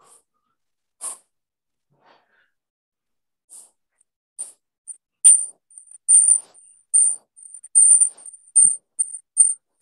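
A run of short, high-pitched squeaks that starts a few seconds in and comes two or three times a second, growing louder and closer together toward the end.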